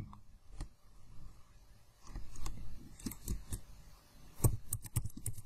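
Computer keyboard typing: irregular key clicks, sparse at first and coming thicker from about two seconds in.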